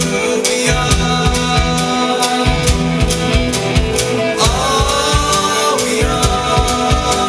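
Live band playing: electric guitar, bass guitar and drum kit with a steady beat. About halfway through, a held note slides up in pitch and holds for over a second.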